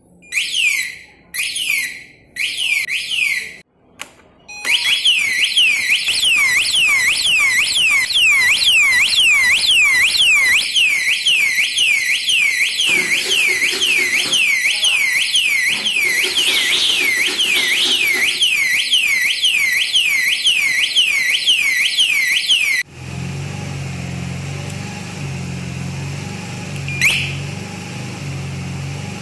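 Motorcycle alarm siren sounding as a rapidly repeating high rising sweep: a few short bursts, then a continuous run. It stops abruptly about three-quarters of the way through and gives way to a quieter low hum with a single click near the end.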